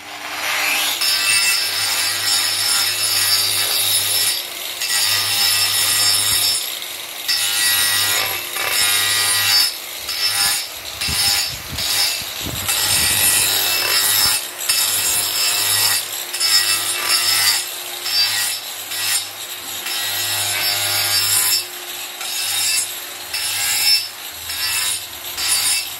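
Angle grinder with an abrasive disc grinding and shaping a wooden sculpture, throwing off dust. Under the motor's steady whine, the rasp of the disc on the wood swells and dips again and again as it is pressed on and eased off in repeated passes.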